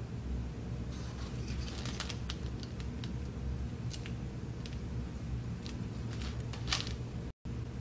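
Small plastic parts of a Gakkenflex kit camera's shutter clicking and tapping as they are handled and fitted into the plastic shutter housing, a scatter of light ticks with one sharper click near the end, over a steady low hum. The sound cuts out for a moment just before the end.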